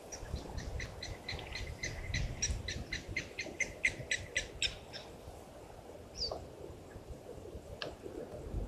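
A bird calling a rapid series of short, evenly spaced notes, about four a second, which grow louder and then stop about five seconds in. A single short call follows a second later, over a low steady background rumble.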